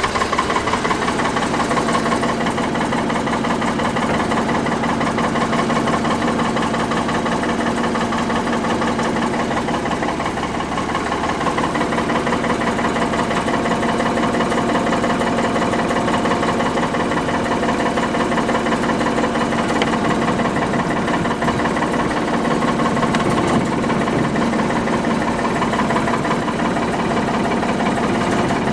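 Ford 555A backhoe's engine idling steadily, shortly after a cold start, with a knocking, diesel-like clatter.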